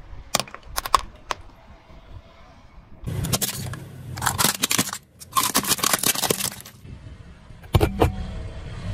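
Plastic toys cracking and crunching under a rolling car tyre: a few sharp snaps in the first second or so, then two long stretches of crackling, and a lower rumble with more snaps near the end.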